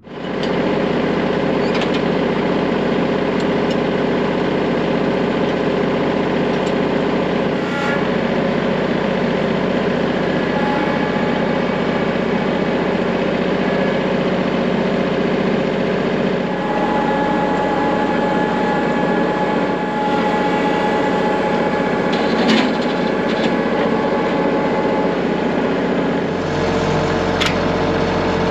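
Kubota L3301 tractor's three-cylinder diesel engine running steadily, with a few light knocks. The engine note shifts about halfway through and again near the end.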